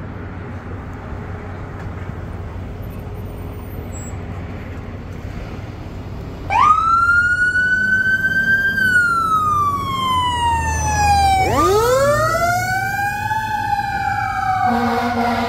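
Fire engine's siren winding up about six seconds in, over a low engine rumble. It wails up to a high pitch and slowly down, then rises again a few seconds later. Near the end a steady air-horn blast joins it.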